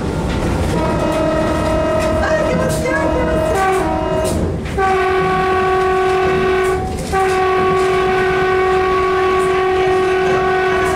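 X'Trapolis Modular electric train running, heard from inside the carriage: a steady rumble of wheels on rail under a sustained whining tone of several notes. The tone shifts pitch a few seconds in and breaks off briefly twice.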